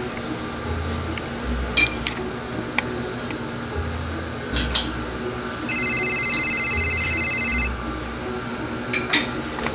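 A mobile phone ringtone, a high electronic trill, rings for about two seconds just past the middle, over soft background music with a slow low pulse. A few sharp clicks fall in between.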